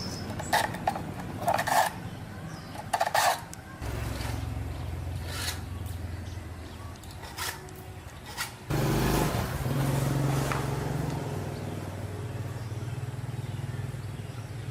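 Small two-stroke chainsaw engine, just restored, running: a few sharp knocks at first, then the engine runs steadily from about four seconds in, and grows abruptly louder about nine seconds in.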